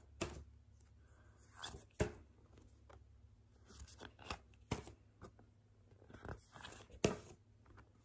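Glossy photo prints being handled, shuffled and pulled apart where they stick together: scattered sharp paper snaps and short rustles, the sharpest about two seconds in and near the end.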